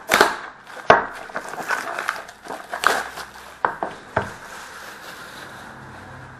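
Hands opening and handling a cardboard hockey card box (2011-12 Panini Rookie Anthology): a quick run of cardboard crackles, rustles and knocks, the last of them about four seconds in as the box is set down on a glass tabletop.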